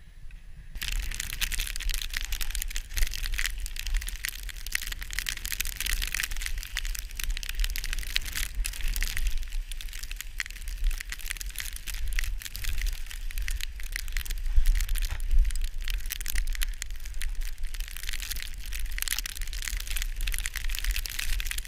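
Snowboard riding through deep powder snow: a continuous crunchy, crackling hiss of the board cutting the snow, with a low wind rumble on the camera's microphone, starting about a second in.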